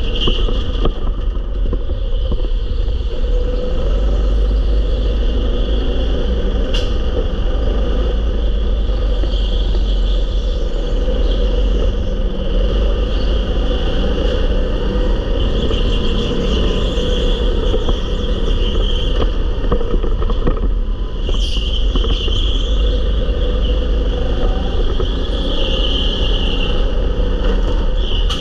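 Go-kart driving at speed, heard from onboard: continuous engine and rolling noise over a heavy low rumble. A sharp click comes about seven seconds in and another about two-thirds of the way through.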